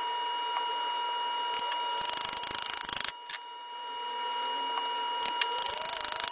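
Hammer tapping glued hardwood plugs into drilled holes in a rapid run of clicks twice, about two seconds in and again near the end, over a steady high whine.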